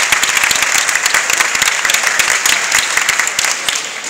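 Applause: many people clapping at once, dense and loud, thinning out near the end.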